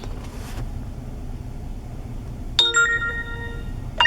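Smartphone app notification chime, a bright bell-like tone ringing out about two and a half seconds in and again near the end, over the low steady hum of a car cabin.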